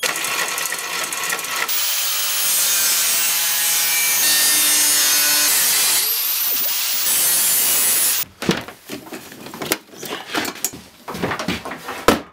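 Angle grinder cutting metal, a loud steady grinding for about eight seconds, its whine climbing briefly around six seconds in. Then irregular knocks and clatter as cables and metal are handled on the bench.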